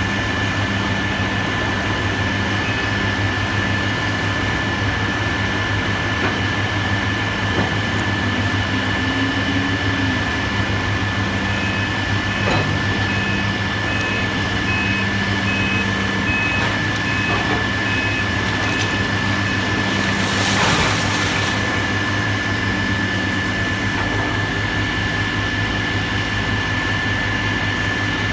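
Diesel engine of heavy demolition machinery running steadily, with a backup alarm beeping about once a second for several seconds in the middle. A short burst of hissing noise comes about three-quarters of the way through.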